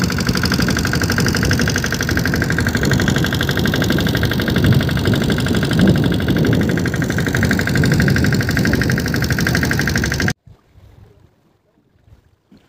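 Small fishing boat's engine running steadily under way, a rapid even chugging. It cuts off abruptly about ten seconds in, leaving only faint sounds.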